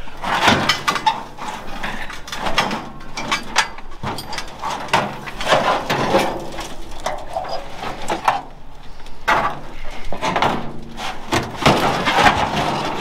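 Old rusty steel truck door being wrestled out of a scrap pile: metal scraping and clanking against scrap and a chain-link fence, with irregular knocks as it is lifted, turned and set down.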